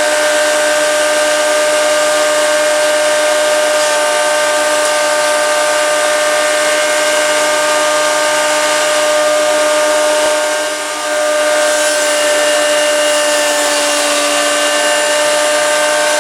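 Jet 10-inch combination planer/jointer running steadily with a high, even motor whine. The sound dips briefly about eleven seconds in, then resumes.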